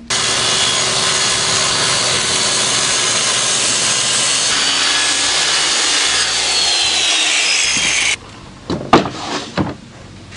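Red corded circular saw cutting through a sheet of 3/8-inch plywood, a loud steady cutting noise that stops abruptly after about eight seconds. A few short, sharp sounds follow near the end.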